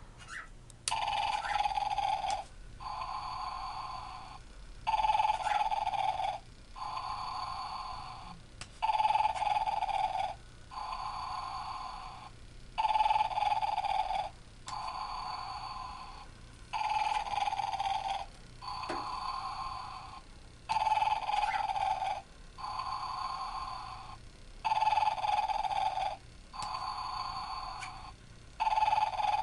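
Animated rocking Santa figure playing its electronic snoring sound: a loud snore in, then a quieter breath out, repeating about every four seconds.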